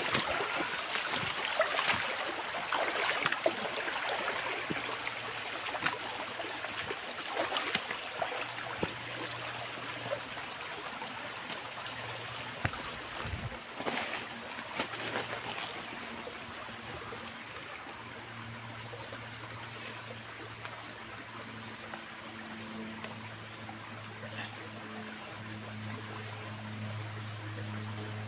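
Shallow creek trickling over rocks, with crackling and rustling of movement through undergrowth and leaves in the first half that dies away, leaving the steady flow of water.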